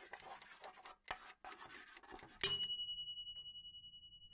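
Chalk scratching on a chalkboard in short irregular strokes, then about two and a half seconds in a single bright bell-like chime rings out and slowly fades.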